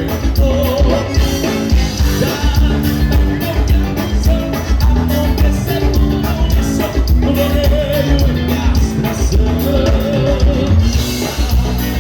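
Live gaúcho dance band playing, with a steady beat and a wavering melody line over it.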